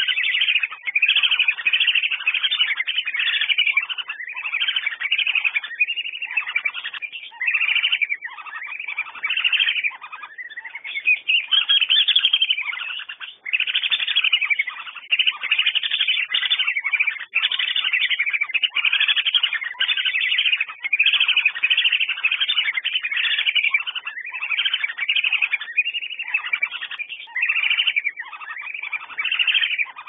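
Whistling ducks (Dendrocygna, belibis) calling: high whistled calls follow one after another in a steady stream with hardly a pause.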